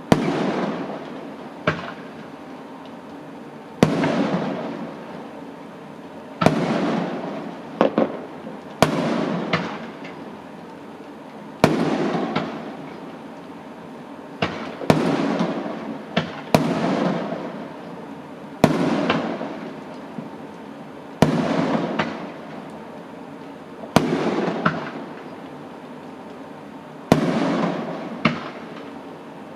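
Fireworks exploding one after another, a sharp bang every two to three seconds, each followed by a fading rumble, with a few smaller bangs in between.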